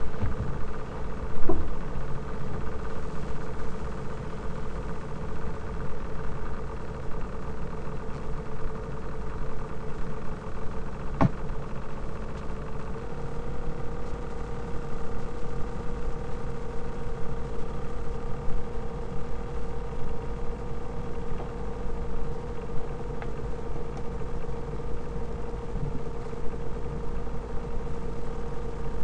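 Laptop cooling fan humming steadily, a sign of its worn bearings, with the pitch stepping up slightly about thirteen seconds in. A sharp thump about a second and a half in and a click near eleven seconds.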